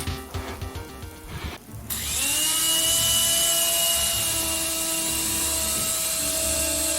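Electric motor and rotors of a micro RC helicopter spinning up about two seconds in, the whine rising quickly and then holding steady over a hiss of rotor wash.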